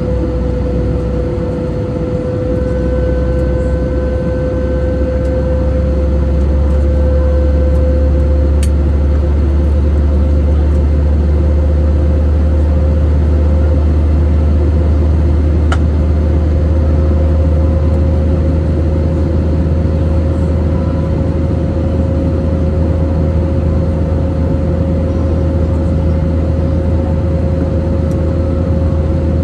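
Cabin noise of an Airbus A320neo in flight: a steady, loud rumble of the engines and rushing air, with a steady drone-like tone running through it.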